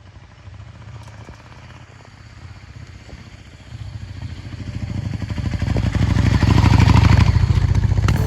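Yamaha V-Star 650 V-twin motorcycle engine running with a steady, even firing beat, growing louder over the second half.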